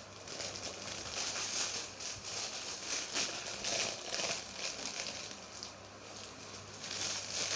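Crinkling and rustling of a parcel's packaging as it is handled and opened, in irregular spells of crackle.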